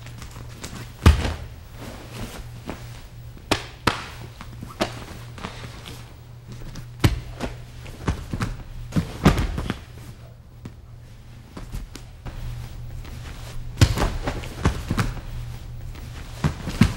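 Irregular thuds and thumps of bodies and feet landing on training mats during jiu-jitsu self-defence technique demonstrations, over a steady low hum.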